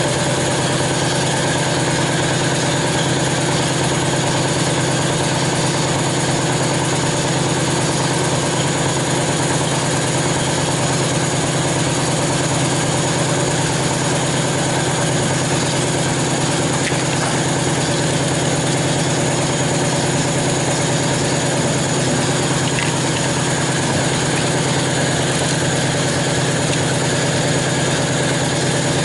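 Machine running with a loud, unchanging drone and low hum, switched on abruptly just before.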